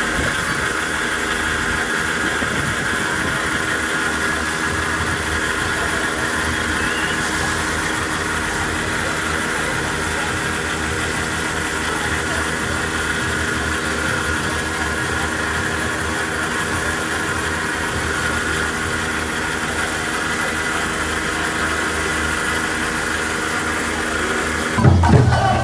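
Cotton candy machine running: a steady motor hum with several held tones while its spinning head throws out sugar floss. Near the end, a louder, different sound cuts in.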